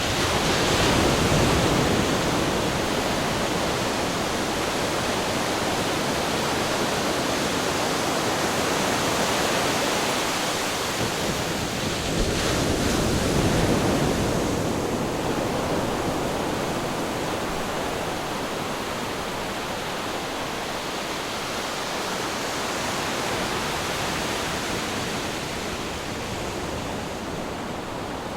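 Ocean waves breaking and washing on a shore: a continuous rushing surf that swells about a second in and again about halfway through, then slowly eases.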